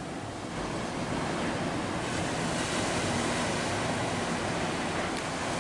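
Ocean surf washing steadily, with wind noise.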